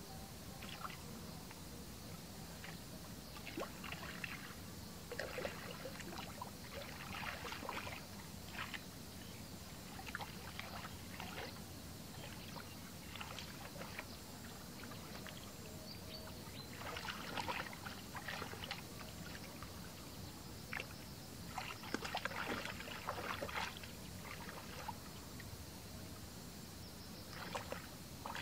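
Hands sloshing and splashing in shallow muddy water in irregular bursts, groping along the bottom of a ditch for catfish.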